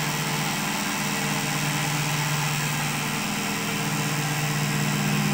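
Cotton candy machine running with a steady motor hum. The pitch shifts up slightly about three seconds in.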